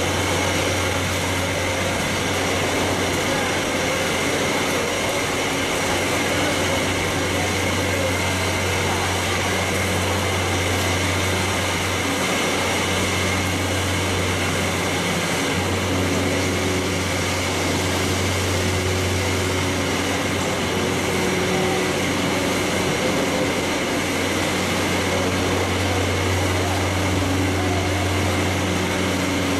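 Steady machinery din of a poultry processing line running, with a continuous low hum.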